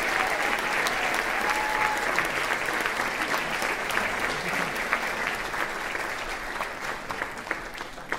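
Audience applauding in a theatre: dense, steady clapping that grows a little quieter near the end.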